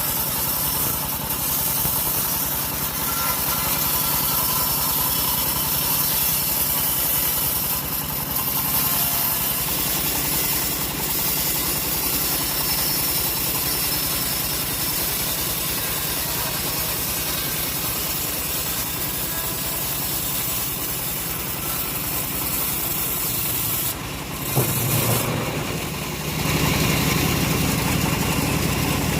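Engine of a homemade engine-driven sawmill running steadily while teak is sawn. Near the end the sound dips briefly with a short sharp knock, then the engine runs louder and lower.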